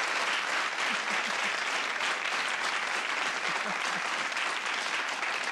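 Studio audience applauding, a steady, even patter of clapping.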